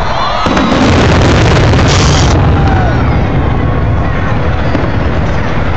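Fireworks going off overhead: a sudden loud boom about half a second in, then continuous low rumbling, with a brief hiss about two seconds in. Crowd voices can be heard underneath.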